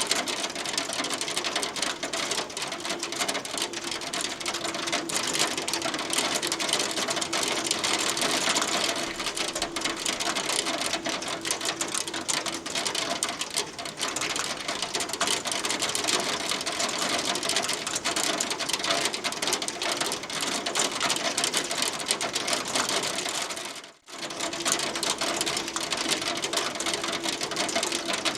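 Hail falling, a steady dense patter of countless small ice pellets striking a hard surface, which cuts out for a moment about three-quarters of the way through.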